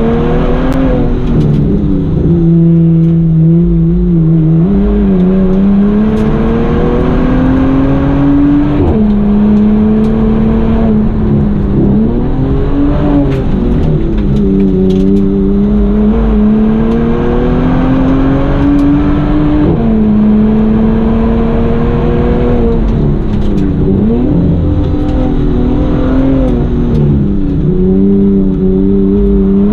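Bentley Continental GT's twin-turbo W12 engine under hard driving, heard from inside the cabin. Its pitch climbs steadily and then drops sharply several times, as the car accelerates, shifts and slows for the bends.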